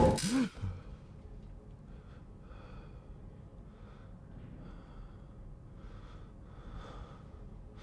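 A loud steady hum cuts off sharply at the start. Then a man breathes hard in short, quiet breaths and gasps, about one a second, like someone jolted awake.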